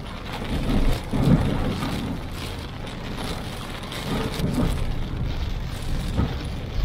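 Heavy rain and wet-road noise from a car driving in a downpour: a steady rushing hiss that swells louder about a second in and again around four and a half seconds, with a short knock near the end.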